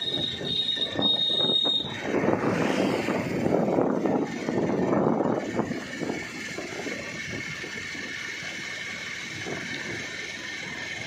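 Wind buffeting the microphone and road noise while riding a two-wheeler, uneven and gusty. A steady high-pitched whine runs through the first two seconds, and a fainter steady tone comes in about halfway.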